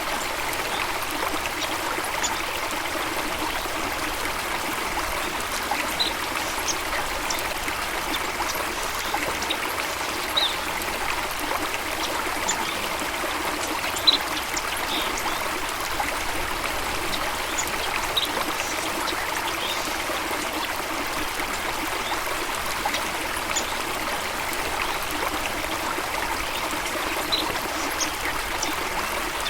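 Running water flowing steadily, like a stream, with short high bird chirps scattered through it every second or two.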